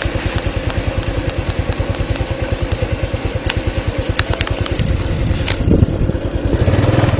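A small engine running steadily with a rapid, even beat, with a few sharp clicks over it; it grows somewhat louder near the end.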